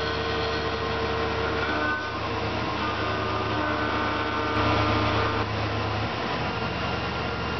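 Tormach PCNC 1100 CNC mill cutting: the spindle and axis drives run with a steady low hum and several whining tones that come and go and change pitch as the axes move, while the end mill works through plastic blanks under flood coolant. It gets a little louder for about a second past the middle.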